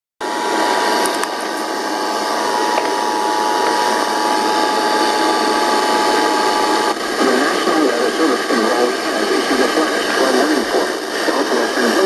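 Emergency Alert System attention signal, the steady two-tone alarm of 853 and 960 Hz, played through a radio's speaker with hiss. It cuts off about seven seconds in, and a voice over the radio begins the flash flood warning.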